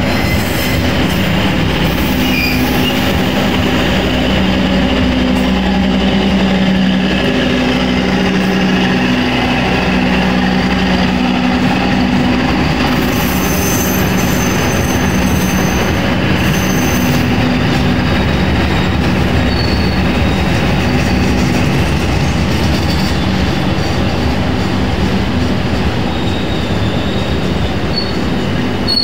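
Passenger train coaches rolling past at close range: a steady, loud rumble of wheels on rail. Thin, high wheel squeal comes in about halfway through and again near the end.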